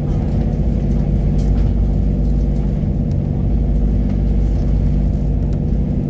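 Steady low drone of a boat's engine under the rush of water churning and foaming along the moving hull.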